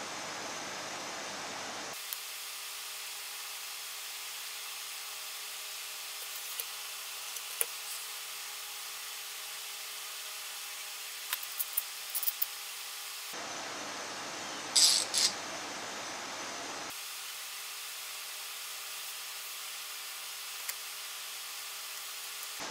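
Bar clamps being fitted and tightened on a freshly glued wooden guitar neck blank: scattered clicks and clacks of the clamp jaws and bars, a quick run of them about twelve seconds in, and two louder rasping sounds about fifteen seconds in, over a steady hiss.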